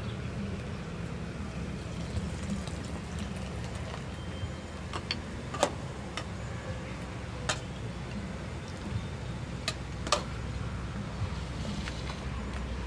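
Cooking utensils clinking against a small bowl and a metal pot: about five sharp clinks through the middle, over a steady low rumble.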